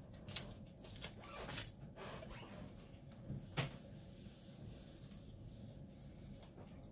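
Faint rubbing and rustling of cotton fabric being smoothed by hand and pressed with a clothes iron sliding over it on an ironing board, with a few brief louder rustles.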